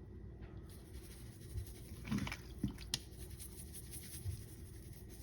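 Soft handling noises as hands work seasoning into raw chicken feet, with a few short clicks and squishes about two to three seconds in over a faint low hum.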